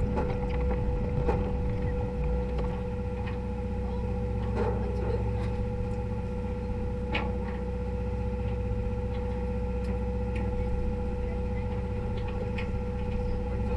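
Steady low hum of a party fishing boat's engine with a constant whining tone over it, and a few short clicks and knocks scattered through.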